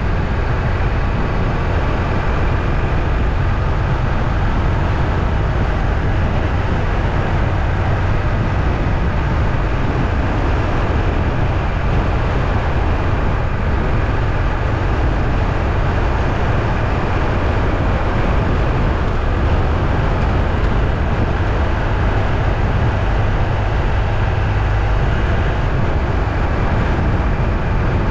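Steady low rumble of a moving vehicle, loud and unchanging.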